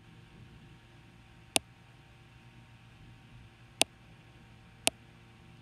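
Three sharp, separate clicks, about a second and a half in, near four seconds and about five seconds in, over a faint steady hum.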